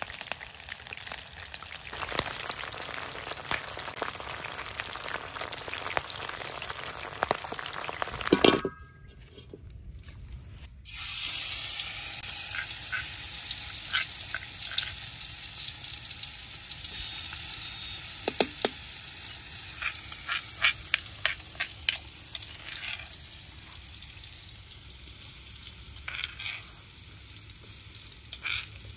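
Food sizzling in hot oil in a steel wok: chicken feet deep-frying, then, after a brief drop about a third of the way in, chopped chilies frying in a little oil. Scattered sharp clicks of a metal spoon against a stone mortar come through the sizzle in the later part.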